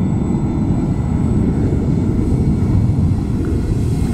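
Twinstar RC plane flying and approaching, its motor drone heard over a steady low rumbling noise.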